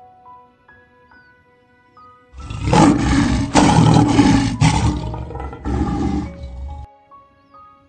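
A lion roaring loudly, starting about two and a half seconds in: one long roar, then a shorter one that ends about a second before the end.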